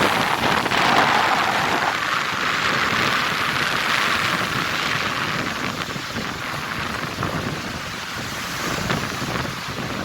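Strong onshore wind buffeting the microphone over surf breaking on the shore. It is a steady rushing noise, loudest for the first couple of seconds and then easing slightly.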